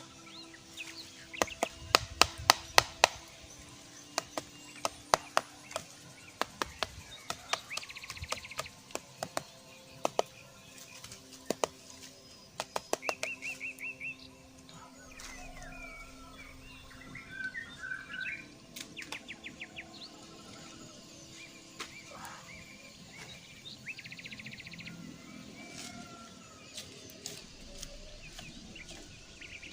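Sharp chopping knocks on wood, in quick runs through the first half and sparser later. Birds chirp and give short trills between them.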